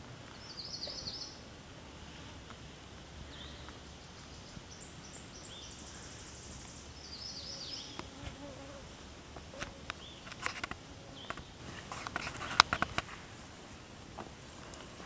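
Flying insects buzzing, with short high chirping calls near the start and in the middle. Footsteps and sharp clicks and knocks in the last few seconds, the loudest about three-quarters of the way in.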